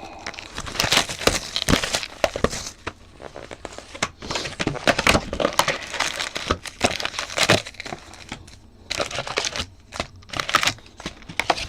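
Plastic wrapping crinkling and tearing in irregular bursts as a sealed box of trading cards is opened and its contents handled.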